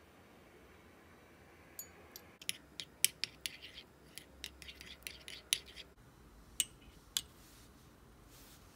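Metal teaspoon clinking and scraping against a small ceramic bowl while stirring a thick sauce: a quick run of clicks for about four seconds, then two single clicks.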